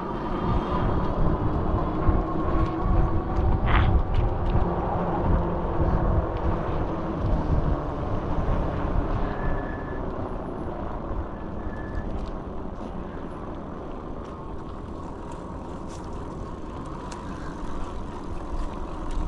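Electric bike riding along a trail: wind buffeting the microphone and tyres rumbling, with a faint motor whine in the first few seconds. It gets quieter through the second half as the bike slows, with two brief high squeaks about ten and twelve seconds in.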